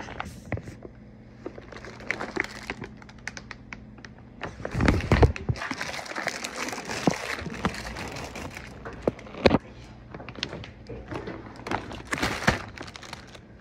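Plastic bag rustling and crinkling as it is handled close to the microphone, with clicks and several sharp knocks of objects being moved.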